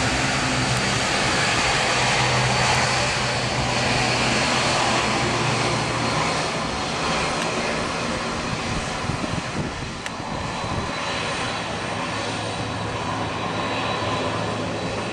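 Boeing 767-300ER jet airliner's engines, a loud, steady rushing noise that eases off a little about six seconds in.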